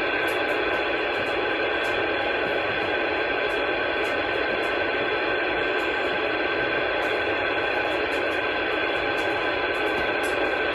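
Steady static hiss from an Anytone AT-6666 radio's speaker on receive with the squelch open, thin like radio audio, with faint steady whistles in it: an empty channel with no station coming back.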